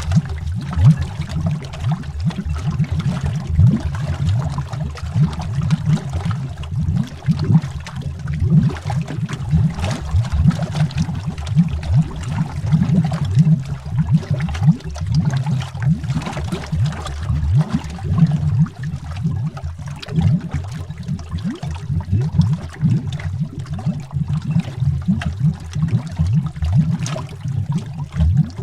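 Underwater bubbling: a continuous stream of bubbles rising through water, heard as a dense, deep gurgle with many small pops and no pauses.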